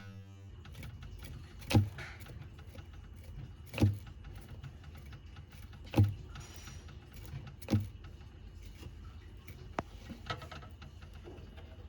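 Four dull knocks at an even pace, about two seconds apart, over a faint steady low hum, followed by two lighter clicks near the end.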